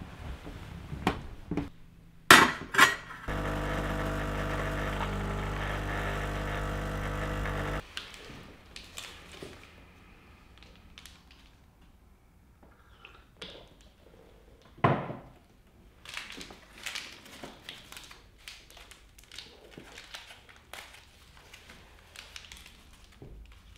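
Clinks and knocks of crockery, then an electric appliance buzzing steadily for about four and a half seconds before cutting off sharply, followed by scattered small clicks and taps with one sharper knock.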